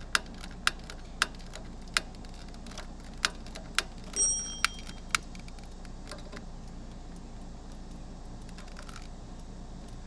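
A wand lighter's trigger clicking at the pilot burner of a propane camper water heater: about eight sharp, unevenly spaced clicks over the first five seconds, then they stop. A brief high ringing tone about four seconds in.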